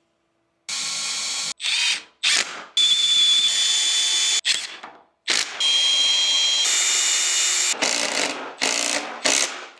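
Power drill running in a string of short bursts, its motor whining at a steady pitch; some bursts stop suddenly and others wind down.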